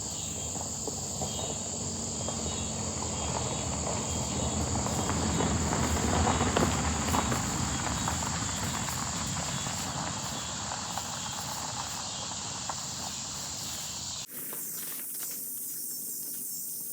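Crickets chirping in a steady high chorus over rustling and movement through the garden, which grows loudest about six seconds in. The sound cuts off abruptly about 14 seconds in.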